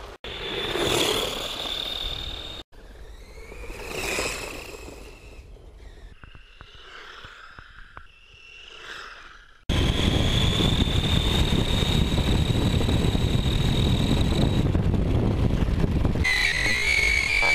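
Electric radio-controlled cars' motors whining high and steady, swelling and fading as the cars speed past, in several short shots. In the second half, a loud steady rumble of tyres on gravel under the motor whine, heard from a camera riding on the car.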